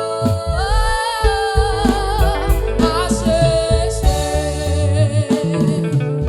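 Gospel praise music: a wavering, vibrato melody over a steady bass line and regular percussion hits, with no words sung.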